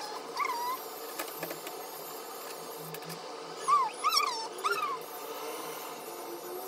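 A long-haired cat mewing in complaint while held for grooming: one short rising-and-falling mew about half a second in, then three in quick succession about four seconds in.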